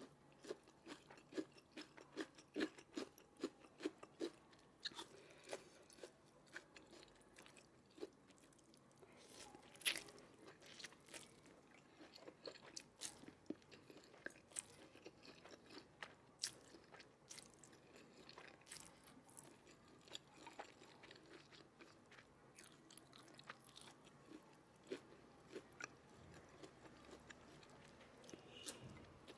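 A person chewing food close to the microphone: a steady run of soft, quick chewing clicks, with one sharper bite or crunch about ten seconds in.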